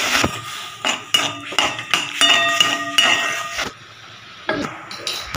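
Steel spatula knocking and scraping against a steel pan while stirring jaggery melting into syrup, the pan ringing after each strike. The clatter stops about two-thirds of the way through, leaving a quieter hiss of the bubbling syrup and a couple more knocks near the end.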